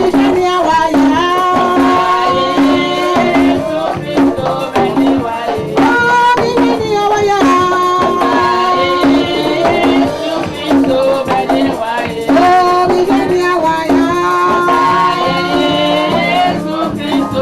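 Live church band music with a steady beat, a regular low pulse about twice a second under held melody notes.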